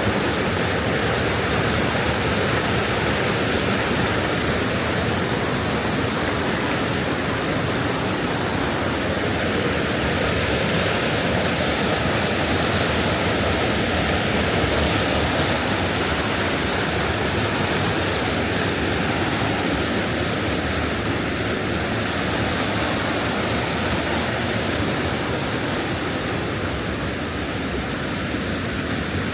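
Steady rush of fast-flowing mountain river water tumbling over rocks and small falls.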